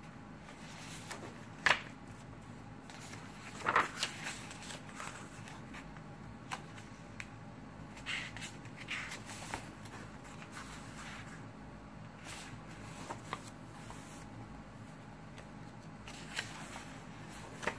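Paper pages of a hardcover coloring journal turned and handled by hand: scattered rustles and flicks, the sharpest about two and four seconds in.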